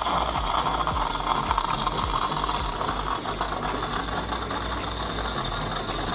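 Bosch Tassimo pod coffee machine running its pump as it brews an Americano into the mug: a steady mechanical noise that eases slightly as it goes.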